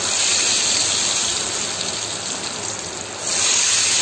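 Potato pieces deep-frying in hot oil in a metal pan: a steady, hissing sizzle and bubbling that gets louder about three seconds in.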